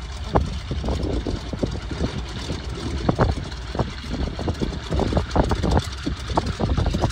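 A de Havilland Beaver floatplane's radial engine and propeller run at low power as the plane taxis on the water, over irregular low thumps of wind buffeting the microphone.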